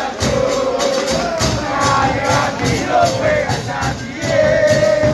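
Crowd of football supporters singing a terrace chant together, over a steady beat of hand percussion.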